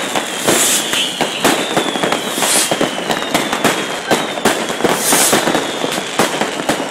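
Fireworks going off in large numbers: a dense, irregular stream of bangs and crackles from rockets and firecrackers. Over them run a few short high hisses and thin high whistles that fall slowly in pitch.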